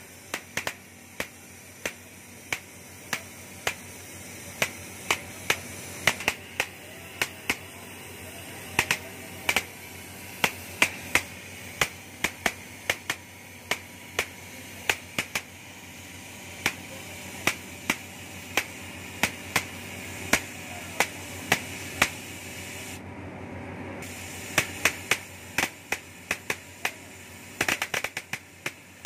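Oxy-fuel gas cutting torch cutting steel: a steady hiss from the cutting jet with many sharp, irregular crackling pops as molten metal and sparks blow out of the cut, the pops coming thicker near the end.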